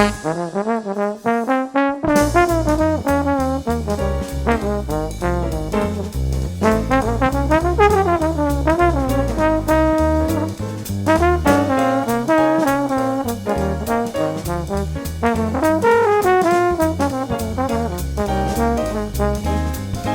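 Upbeat background music led by trombone and trumpet, jazz or swing in style, over a steady beat.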